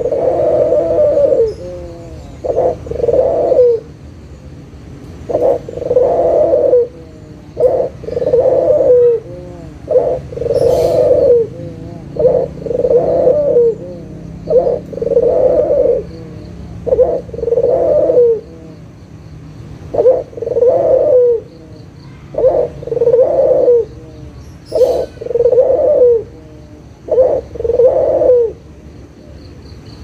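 White Barbary dove (puter) cooing over and over: a short note followed by a longer rolling coo, repeated about every two seconds, with the calls stopping near the end.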